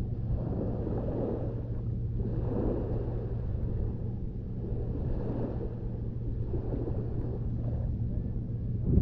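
Small lagoon waves washing onto a sandy beach, the wash swelling and fading every two to three seconds over a steady low rumble.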